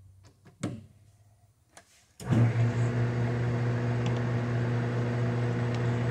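A few faint clicks as a small brass cap screw is turned by hand into a collet-held arbor, then about two seconds in the lathe switches on and runs with a steady hum. The spindle is running in reverse so the screw does not unscrew from the fixture.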